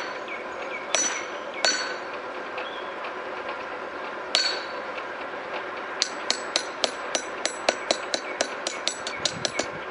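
Hand hammer striking a steel tool blank held in tongs on an anvil to knock down a bump. There are four separate ringing blows in the first half, then a quick run of lighter blows, about four a second, near the end.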